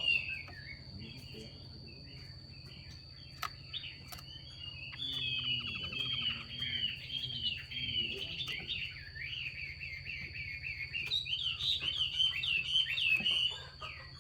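Female Chinese hwamei (melodious laughingthrush) giving rapid, scratchy chattering calls, the 'xùy' calls that keepers play to excite male hwameis into song. The calls are sparse for a few seconds after the start, then run densely until near the end, over a steady high-pitched whine.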